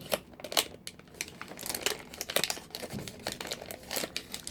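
Blind-box packaging crinkling and rustling as it is handled and pried open by hand, a dense run of small irregular crackles.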